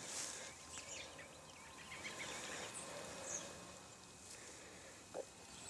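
Faint open-field ambience: a brief brush of dry grass at the start, then a few faint, high, wavering chirps of small birds.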